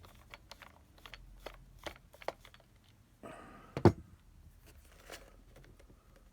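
Small clicks and scrapes of hand tools and screws as the screws come out of a plastic charger case, with a short rasp and one sharp click a little before four seconds in.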